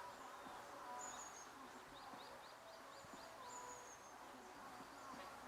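Faint, high-pitched bird chirps over quiet outdoor ambience, with a quick run of about six short chirps a little over two seconds in.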